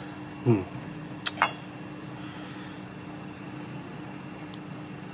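Two light clinks of a ceramic teapot being handled, about a second in, the second with a short ring, after a brief hummed 'hmm' from the brewer. A steady background hum runs under it all.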